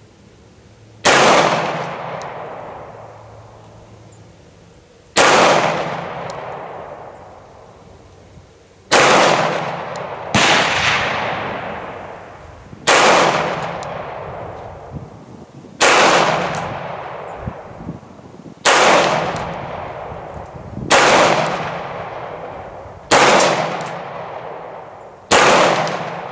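Beretta 92X Performance 9mm pistol firing 115 grain Federal ammunition at a slow, deliberate pace: ten single shots, about two to four seconds apart, each with a long echoing tail.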